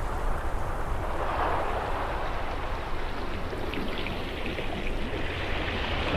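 Steady rushing noise with a low rumble underneath, swelling about a second and a half in and again near the end.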